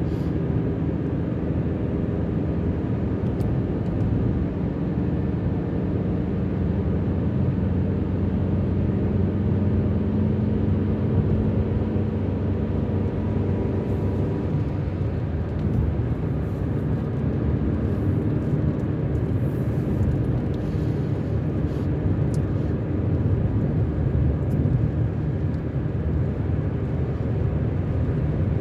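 Car driving along: steady engine and road noise, with an engine tone climbing slowly over the first half and changing about halfway through.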